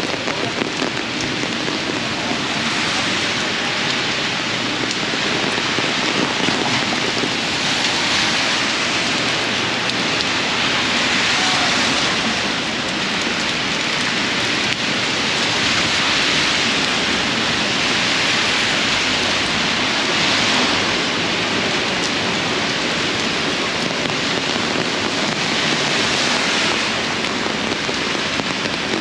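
Heavy rain falling on an open umbrella overhead and on wet pavement, a loud, steady hiss that swells and eases slightly every few seconds.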